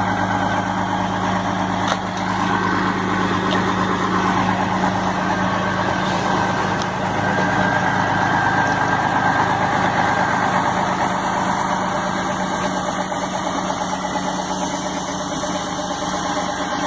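A vehicle engine idling steadily, a constant low hum under an even rushing noise.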